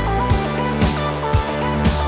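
Background music with a steady beat: guitar and drums, the drum hits about two a second.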